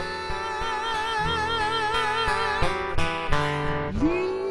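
A man sings a long, high held note with vibrato over acoustic guitar. A few strummed guitar chords follow, and near the end a new sung note slides up and holds.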